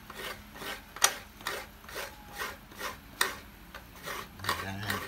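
Fresh coconut being grated by hand on a stool-mounted coconut grater: the coconut half rasps against the blade in short, even scraping strokes, about two a second.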